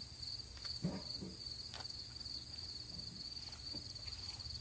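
Crickets chirping in a steady, pulsing trill, with a short, soft low sound about a second in.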